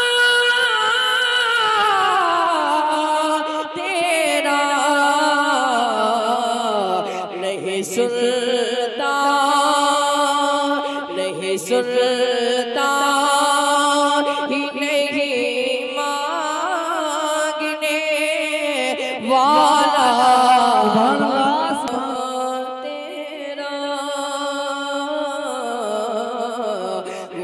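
A solo voice singing a naat, an unaccompanied-style devotional chant, in long held notes with melodic slides between them; it glides downward in the first few seconds.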